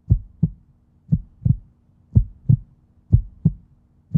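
Heartbeat sound effect: paired low thumps, lub-dub, about one pair a second, over a faint steady hum.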